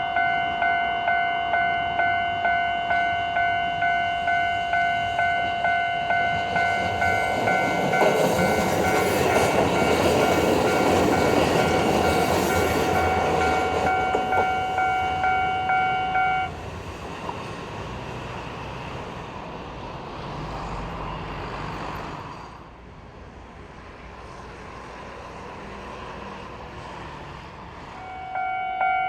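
Japanese level-crossing alarm ringing a steady repeating ding, about one and a half strikes a second, while a Kotoden electric train runs through the crossing, its wheel noise swelling and fading. About halfway through the alarm stops and the train's rumble dies away; near the end the alarm starts ringing again.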